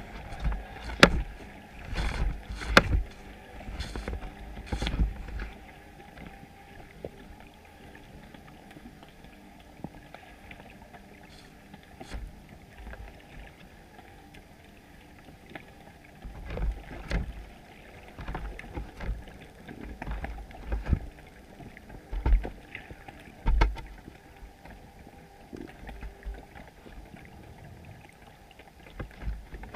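Muffled underwater sound picked up through a GoPro housing on a chum pot: irregular knocks and low thumps over a faint steady background noise. The knocks come in clusters in the first few seconds and again from about halfway on, with a quieter stretch in between.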